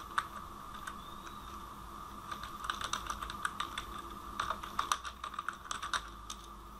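Computer keyboard typing: a few scattered keystrokes, then a quick, uneven run of them from about two seconds in until near the end.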